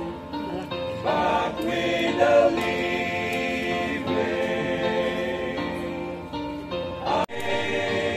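Music with a group of voices singing together in long held notes, choir-like. About seven seconds in there is a sharp click and the sound drops out for an instant.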